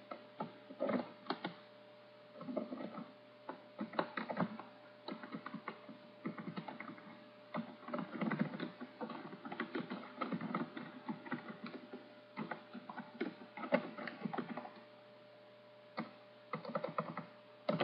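Computer keyboard typing in irregular bursts of quick keystrokes with short pauses between, over a faint steady electrical hum.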